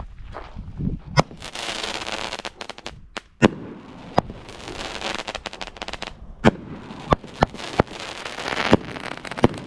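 Plastic shrink-wrap on a firework cake crinkling and tearing as it is pulled open, in several stretches, with sharp clicks and knocks from the cardboard tube box being handled.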